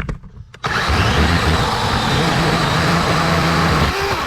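DeWalt DCCS620 12-inch battery chainsaw starting about half a second in and cutting through a thicker branch, running steadily under load for about three seconds, then stopping near the end.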